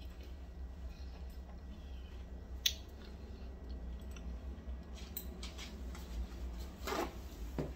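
Tortilla chips being chewed with guacamole, giving a few sharp crisp crunches, over a steady low hum.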